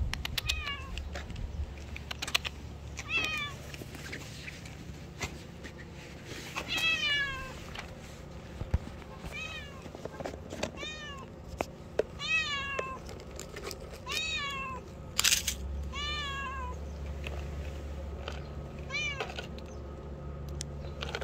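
Cat meowing repeatedly: about ten short meows, each falling in pitch, spread through the whole stretch. A few light clicks and knocks sound between them, with one sharp knock about fifteen seconds in.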